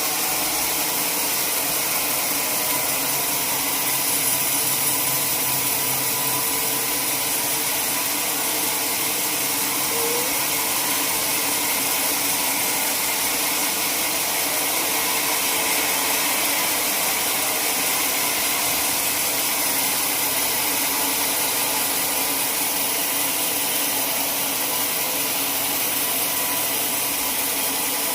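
Sawmill saw running, a steady high hiss with a faint hum underneath.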